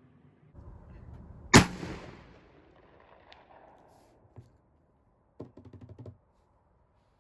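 A single shot from a black-powder Pattern 1853 Enfield rifle-musket about a second and a half in, its report echoing and dying away over about a second. A few seconds later comes a short run of quick rattling ticks.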